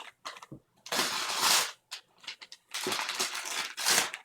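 Wrapping paper being torn and crinkled as a present is unwrapped, in two long rustling stretches with small crackles between.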